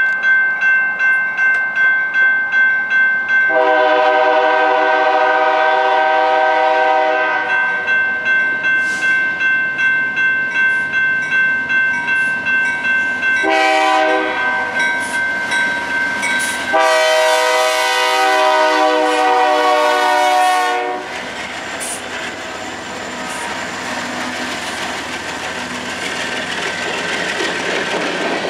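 Grade-crossing bell ringing about twice a second while an approaching BNSF freight train's locomotive sounds its air horn in three blasts for the crossing, the last held about four seconds. About 21 s in the horn stops and the rumble of loaded covered grain hopper cars rolling over the rails takes over.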